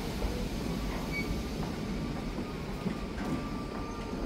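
Freight train passing through, its wagons rolling by on the rails in a steady, dense noise, with a few short, faint wheel squeals.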